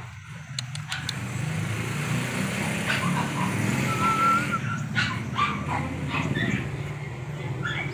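Shih Tzu puppies whimpering and yipping now and then, with one held whine about halfway through, over a steady low rumble.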